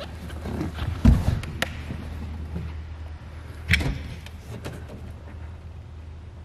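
Carpeted hatch lid over an aluminum boat's stern live well being lifted open: a few knocks and clunks, the loudest about a second in and another near four seconds, over a steady low hum.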